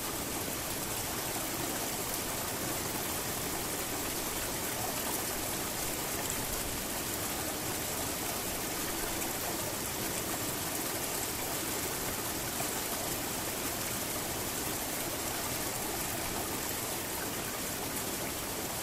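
Steady rushing of falling water from a mountain stream pouring down as a waterfall.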